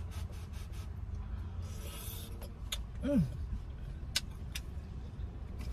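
Steady low hum of a car's idling engine heard inside the cabin, with a faint rustle and a few light clicks of something being handled, and a short hummed "mm" about three seconds in.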